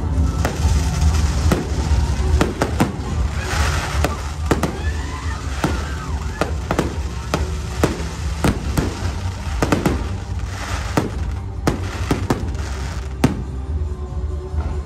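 Aerial fireworks shells bursting overhead in many sharp bangs spread through the moment, the loudest near the end. They sound over loud music with a steady deep bass, the soundtrack of the pyromusical display.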